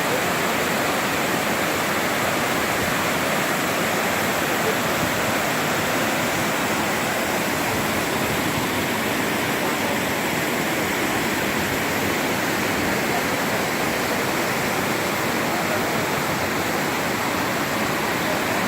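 A waterfall's falling water rushing, a loud, steady noise that doesn't change.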